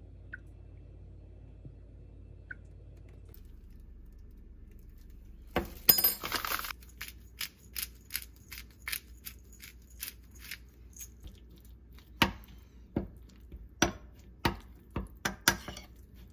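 A pepper mill grinds for about a second, followed by a run of ticks and sharp clinks of a metal spoon against a small glass bowl as a thick chili sauce is stirred.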